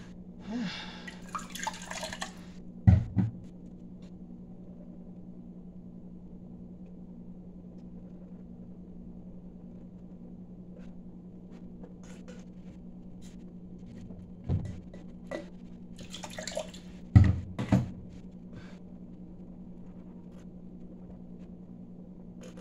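A person sipping water from a plastic cup, with slurping sounds and several short, loud low gulps as she swallows, over a steady low hum.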